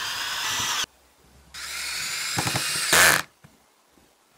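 Cordless drill driving screws into a plywood panel joint: two runs of motor whine, each rising slightly in pitch, the first cutting off just under a second in, the second starting about a second and a half in and ending with a brief louder burst.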